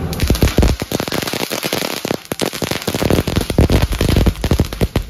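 A string of firecrackers going off: a fast, irregular crackle of sharp bangs, thinning briefly about a second and a half in before picking up again.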